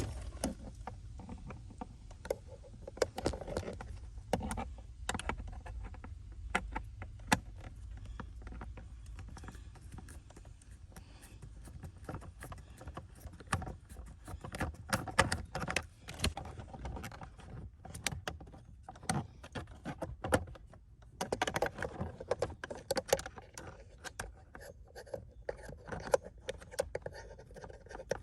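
Scattered clicks, taps and light rattles of hands and tools working on a car's steering-wheel assembly, over a low hum that stops about 21 seconds in.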